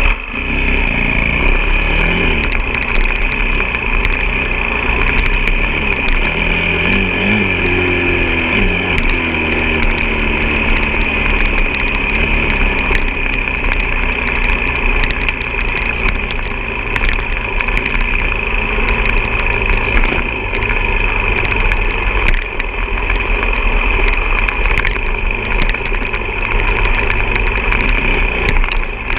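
Off-road motorcycle engine running steadily, revving up and down briefly about a third of the way in, with many small clicks and knocks over it.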